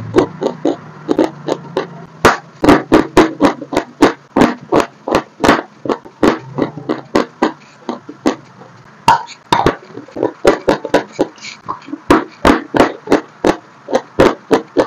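Close-miked crunching of dry chalk being bitten and chewed: a fast, uneven run of sharp, crisp crunches, several a second.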